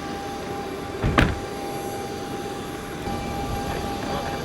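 Steady whine and rumble of a jet's engines running on the ramp, with one sharp thump about a second in.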